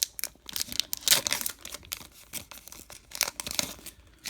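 Crinkling and tearing of a baseball card pack's wrapper as it is ripped open, in irregular bursts, busiest at the start and again about three seconds in.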